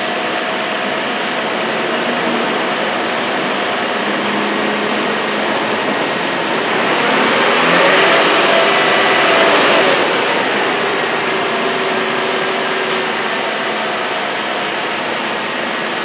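2004 Toyota 4Runner engine idling, then held at raised revs for a few seconds in the middle before dropping back to idle. This is the revving step of an alternator test, with the headlights on as an electrical load.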